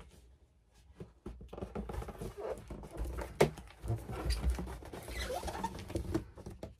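Cardboard packaging being handled: irregular scraping, rustling and small knocks as the large boxed doll is lifted and turned, starting about a second in, with one sharp knock about three and a half seconds in.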